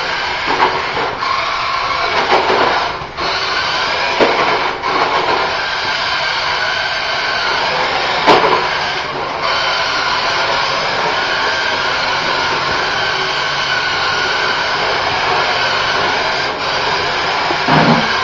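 Remote-control toy car's electric motor and gears whining steadily as it drives, with a few short louder noises mixed in.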